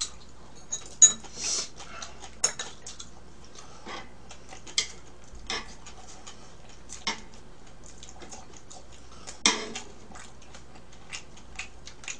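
Chopsticks clicking and tapping against a tabletop grill plate and a bowl as pieces of grilled beef are picked up, about a dozen sharp clicks spaced irregularly.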